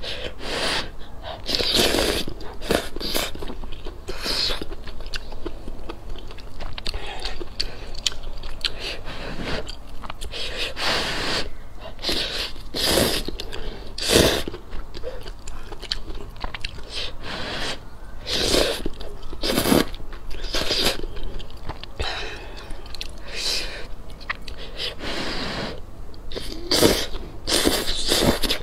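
A person slurping noodles out of spicy soup and chewing them, with repeated loud slurps and wet chewing in between.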